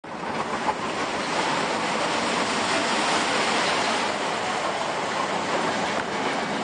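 Vekoma Boomerang steel roller coaster train running along the track overhead: a steady rushing rumble of wheels on steel rails that builds to its loudest midway and eases slightly toward the end.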